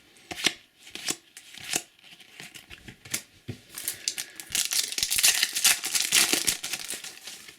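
Trading-card packet wrapper crinkling and cards being handled: a few sharp clicks and rustles, then dense crinkling from about four seconds in.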